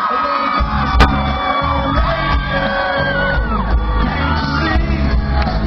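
Live band music with singing, and crowd shouts and whoops over it; a sharp click about a second in.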